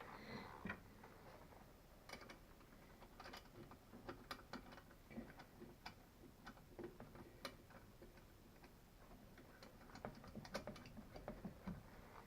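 Faint, irregular small metallic clicks and taps of nuts and washers being handled and threaded onto seat-mounting bolts.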